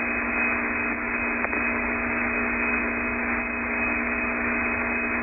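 Steady hiss and hum of the Apollo 8 air-to-ground radio link between transmissions, with a faint click about one and a half seconds in.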